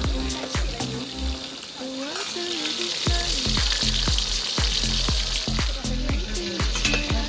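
Food sizzling as it fries in a pan, the hiss growing louder about three seconds in, under background music with a steady beat.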